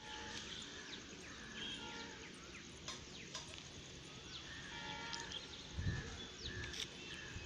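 Birds chirping and calling, many short notes sliding up and down in pitch, over a steady background hiss. There are two sharp clicks around the middle and a brief low rumble near the end.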